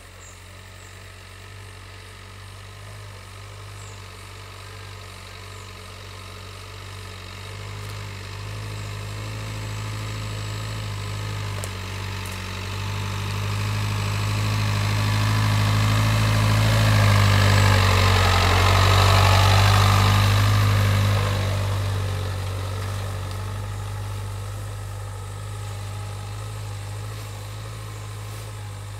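Dacia Duster SUV driving slowly on a rough grassy dirt track: a low, steady engine hum that grows louder as it approaches, peaks with a rush of tyre and brush noise as it passes close by about two-thirds of the way through, then fades as it drives away.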